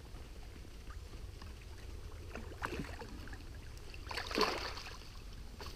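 Water splashing as a landing net is pushed through a shallow river to scoop up a hooked chub. There is a small splash about two and a half seconds in and a bigger one about four seconds in, over a low steady rumble.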